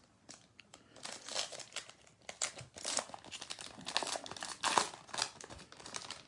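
Trading card pack wrapper being torn open and crinkled, a run of irregular crackling and rustling as the pack is opened.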